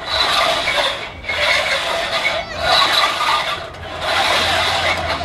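Rowing boat's oars working in their oarlocks, a rasping, rubbing stroke repeating about every 1.3 seconds.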